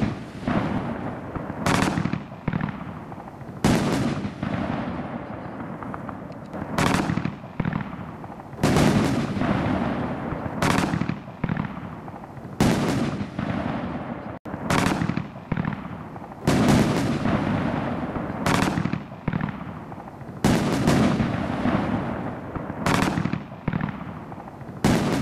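A Winda King Crown 9-shot consumer firework cake firing: a sharp bang about every two seconds, each followed by a fading tail of noise, as the shots lift and break in the air.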